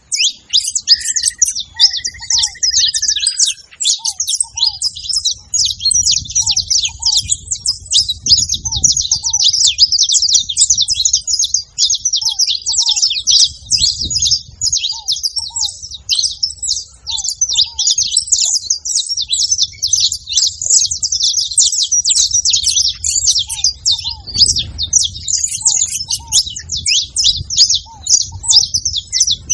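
Several saffron finches singing and chirping together in a continuous, rapid jumble of high notes, with a short whistled note near the start and a fainter, lower short call repeating about once a second.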